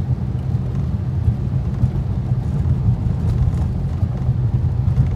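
Dodge Charger SRT's V8 running at a steady cruise, heard from inside the cabin as a continuous deep rumble. Tyres hiss on the rain-wet road.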